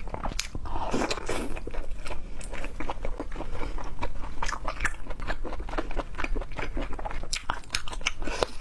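Close-miked mouth sounds of eating: steady chewing and crunching with many small irregular clicks and smacks, and a brief rushing, slurp-like noise about a second in.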